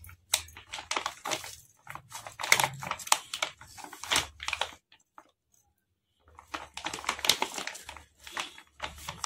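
Plastic packet of Balamrutham powder crinkling as the powder is shaken out of it into a steel bowl, in dense crackles that stop for about a second and a half midway, then start again.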